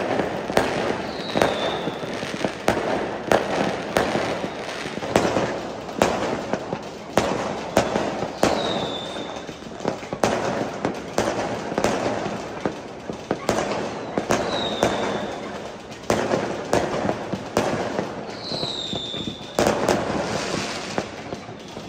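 Fireworks going off in a steady barrage: many overlapping bangs and pops over a continuous rumble. A short, high, falling whistle comes four times, every five or six seconds.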